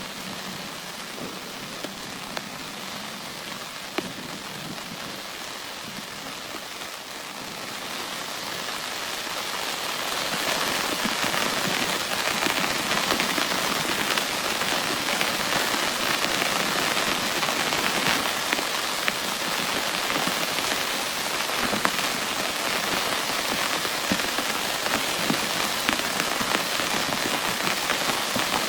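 Heavy rain pouring steadily. It swells louder about eight to ten seconds in and then holds, with single drops tapping sharply now and then.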